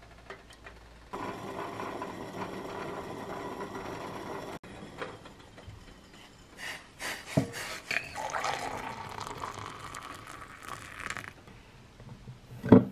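Liquid sounds of a hot drink being made: a steady hiss from a small steel saucepan heating on an electric coil stove, then splashing liquid and light clicks. Near the end comes one sharp knock as the tumbler is handled on a wooden desk.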